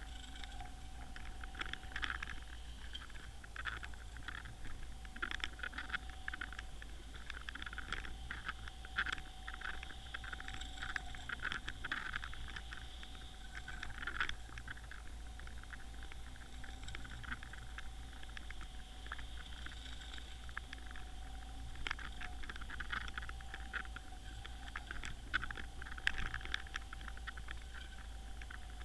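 Underwater sound picked up by a submerged camera: dense, irregular crackling and clicking, over a steady thin whine and a low hum.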